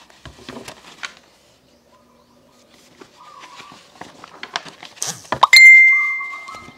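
Sound effects under a radio drama: soft chirps and scattered small taps, then about five and a half seconds in a sudden loud strike that rings on at one clear pitch and fades over about a second.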